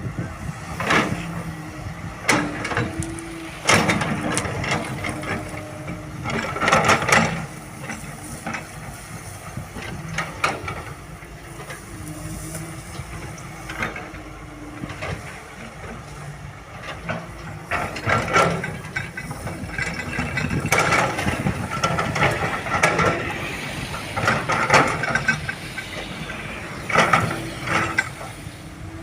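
Cat 320 GC hydraulic excavator working: its diesel engine runs with a steady hum while frequent clanks and rattles come and go throughout.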